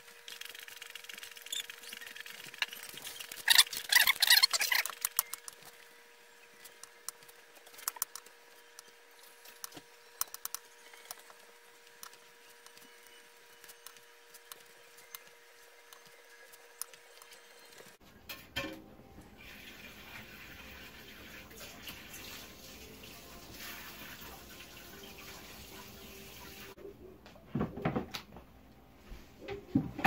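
Kitchen food-prep handling: a metal mixing bowl and a foil-lined baking tray clattering and knocking as bacon-wrapped quail are laid out, busiest in the first few seconds, then scattered light clicks over a faint steady hum that stops abruptly about two-thirds of the way through.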